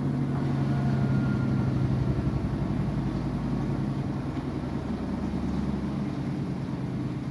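Samsung washing machine running, its motor giving a steady low hum with a fast, even pulsing.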